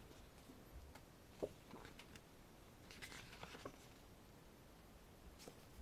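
Faint rustling of glossy photobook pages being turned by hand, with a soft tap about a second and a half in and a few quick rustles around three seconds in.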